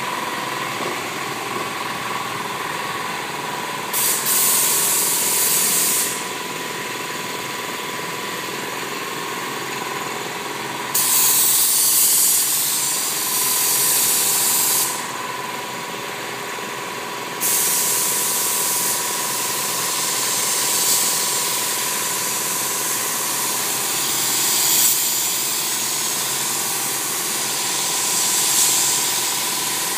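Gravity-feed paint spray gun hissing as compressed air atomises white paint onto a car body. The trigger is pulled in bursts: a short one about 4 seconds in, a longer one from about 11 seconds, then held on from about 17 seconds with small swells. Under it runs a steady machine hum with a thin high whine.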